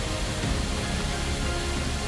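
Background music over a steady rush of falling water from a waterfall.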